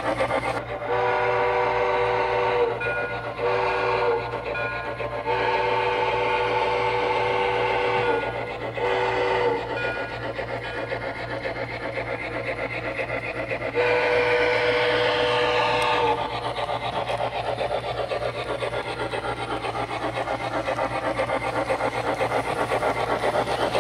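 Model steam locomotive's DCC sound system blowing a chime steam whistle in a series of long and short blasts, then one more long blast about 14 seconds in, over the locomotive's steady running sound.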